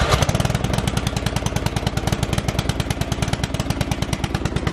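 Huskee riding lawn mower engine running steadily right after being jump-started, with a rapid, even firing beat.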